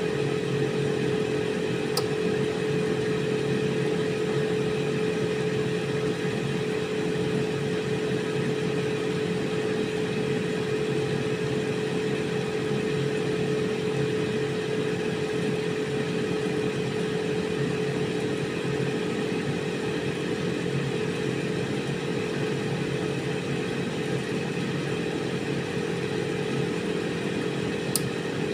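Air fryer running steadily, its fan and heater giving an even whirring hum with a strong steady tone. A brief click sounds about two seconds in and again near the end.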